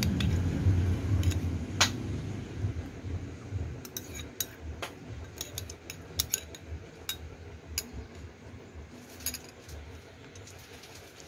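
Metal spoon scraping and clinking against a ceramic bowl while scooping rice and mussels, with many sharp separate clinks. A low rumble in the first few seconds fades away.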